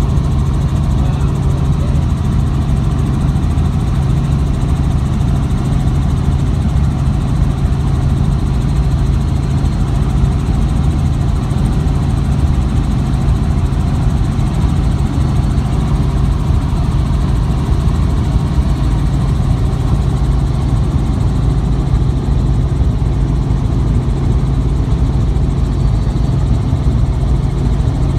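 Light helicopter's engine and rotor droning steadily in level flight, heard from inside the cabin, the sound heavy in the low end and unchanging.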